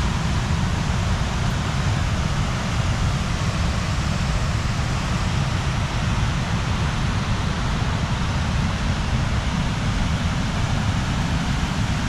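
Fast-flowing storm runoff rushing over rocks and riprap, a steady rush of white water with a heavy low rumble underneath.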